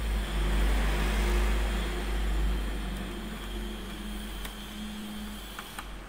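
A steady low rumble with hiss, louder for the first couple of seconds, and a couple of light clicks near the end as a screwdriver works the screws of a laptop's base panel.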